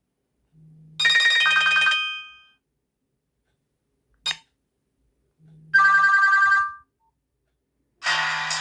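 Nokia 100 mobile phone playing short ringtone tunes through its small speaker. A brief phrase of notes comes about a second in, a short blip near the middle, another short phrase a little later, and a new tune starts near the end, with dead silence between them and a faint low hum under each.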